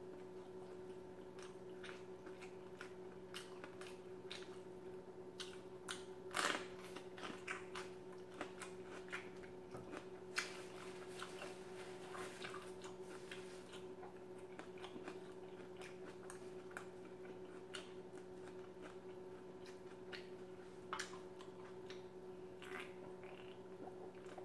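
Close-miked mouth sounds of chewing food, with many short wet clicks and smacks, the loudest about six seconds in. A steady low hum runs underneath.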